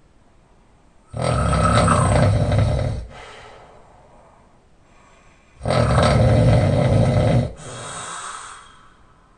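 A man snoring with his mouth open while lying on his back. Two loud snores of about two seconds each, starting about a second in and again about four and a half seconds later, each followed by a quieter exhale.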